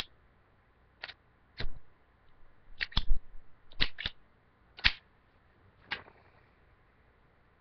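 Sharp metallic clicks from a Zippo lighter being handled: about eight over five seconds, some in quick pairs.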